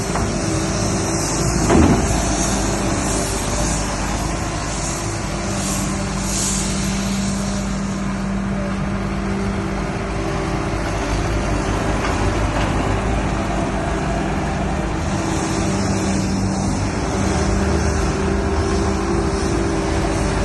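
Bobcat S650 skid steer's diesel engine running steadily, with one brief louder burst about two seconds in.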